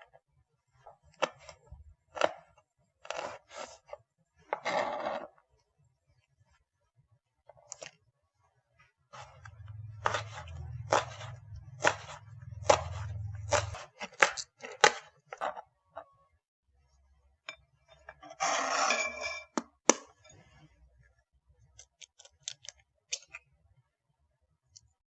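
Kitchen utensils being handled during food preparation: a run of sharp knocks and clinks, with two brief scrapes and a low hum under part of it.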